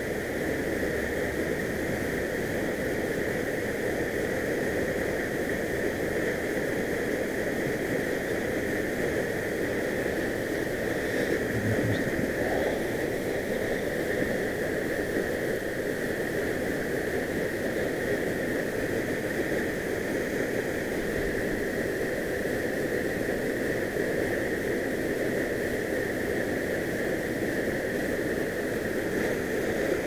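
Mountain stream running steadily over rocks into a pool: a constant rushing of water.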